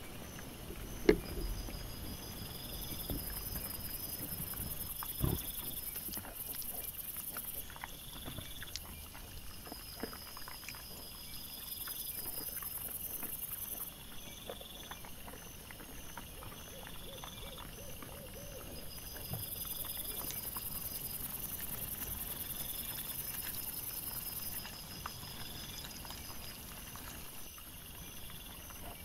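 Wild boar and piglets foraging on leaf litter: scattered rustles, knocks and thuds, with a sharp knock about a second in and another about five seconds in, over a steady high hiss.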